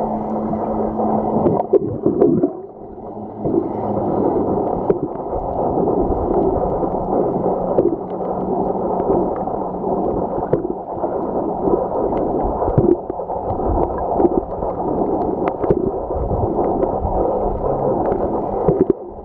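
Muffled underwater noise picked up by a submerged camera: water sloshing and gurgling close to the surface, with scattered small clicks and a steady low hum in the first several seconds.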